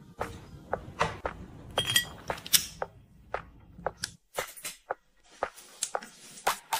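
Irregular light taps, clicks and clinks of household items being handled and set down, including glass condiment bottles placed on a plastic turntable tray; one clink rings briefly about two seconds in.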